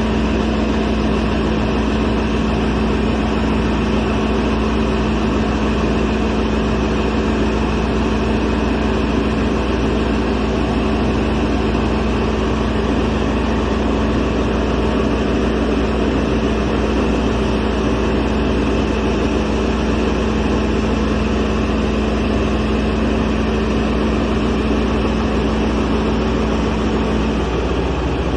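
Kaishan KS400 water well drilling rig running: a steady, loud machine drone with a constant hum, which drops away shortly before the end.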